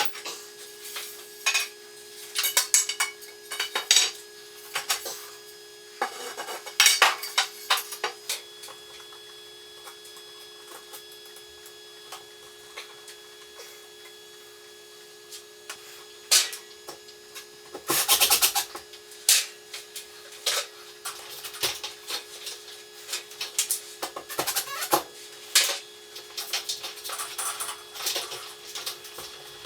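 Irregular metallic clinks, knocks and clatter from handling tools and hardware, in clusters with a quieter stretch in the middle, over a steady low hum.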